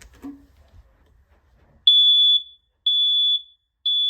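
Combination smoke and carbon monoxide alarm sounding its smoke alarm: three loud, steady, high-pitched beeps about half a second long and a second apart, beginning about two seconds in. This is the three-beep fire-evacuation pattern.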